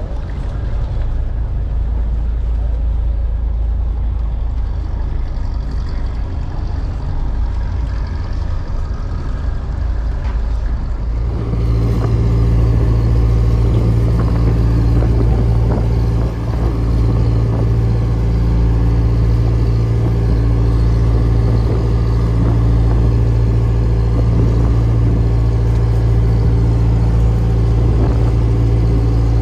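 A steady low rumble, then from about 11 seconds in the engine of a small trawler running steadily at an even pitch.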